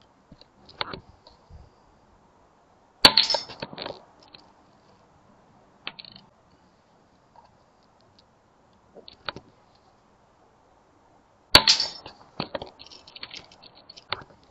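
Two shots from a Daystate Air Wolf pre-charged pneumatic air rifle, about eight and a half seconds apart. Each is a sharp report followed by about a second of smaller clicks, the pellet striking the metal spinner targets and setting them rattling. A few faint clicks come in between.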